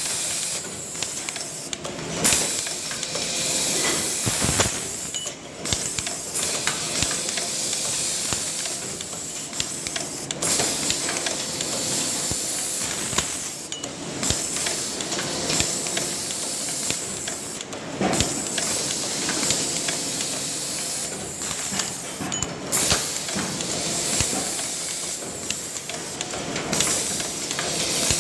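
Pneumatic pick-and-place machine stacking abrasive cutting wheels: a steady hiss of compressed air, broken by brief pauses every few seconds, with occasional clicks and knocks as the arm grips and sets down discs.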